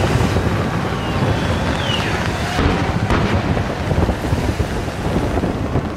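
Fireworks display: aerial shells bursting in a dense, continuous low rumble, with a few sharper bangs and faint whistles.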